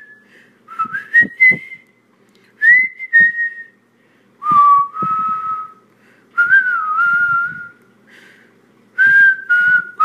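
A person whistling a tune in short phrases separated by brief pauses. The notes slide and step between high pitches and settle on lower notes near the end.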